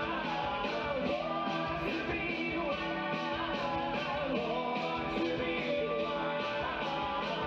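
Live rock-and-roll band playing drums, bass guitar and keyboard, with several male voices singing into microphones over a steady beat.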